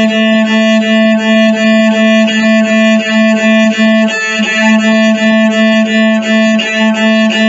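Cello playing its open A string, bowed in repeated short strokes on one steady pitch.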